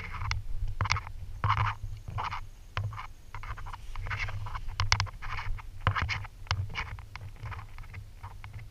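Irregular scraping and rustling of a hand in coarse beach sand and grit, with sharp clicks, as hatchlings are picked up and put in a collapsible plastic bucket, over a low rumble of the camera being handled.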